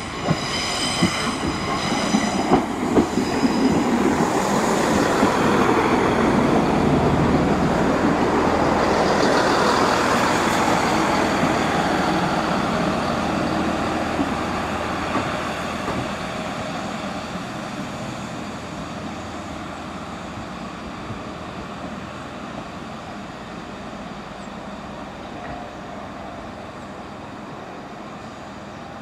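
Class 165 diesel multiple unit arriving: its wheels squeal and click over rail joints in the first few seconds. Then the diesel engines and wheels rumble loudly as it runs past, fading steadily as it slows and draws away down the platform.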